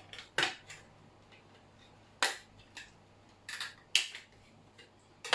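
Plastic casing and tools clicking and snapping as a portable hard drive's enclosure is pried apart: a handful of sharp, irregular clicks.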